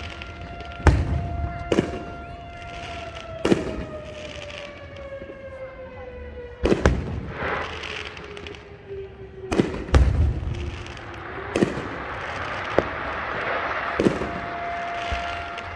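Aerial fireworks shells bursting overhead: about nine sharp booms at uneven intervals, each with a rolling echo. The loudest come about a second in, near seven seconds and at ten seconds. Underneath runs a steady tone that slides slowly down in pitch through the middle and returns near the end, and a hissing crackle fills the later seconds.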